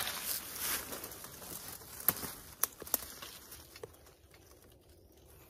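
Dry fallen leaves rustling under hands and movement, with a few sharp clicks, growing quieter toward the end.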